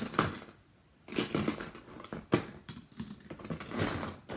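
Fidget spinners being handled and taken out, clattering and knocking together with rustling, and a sharp click about halfway through.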